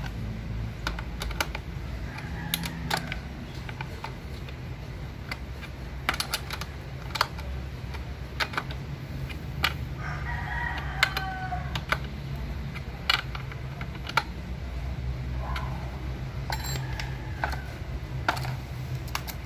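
Scattered metal clicks and taps of a chainsaw combination wrench working the bar nuts on a Stihl MS 170 chainsaw's side cover, with a rooster crowing once about ten seconds in.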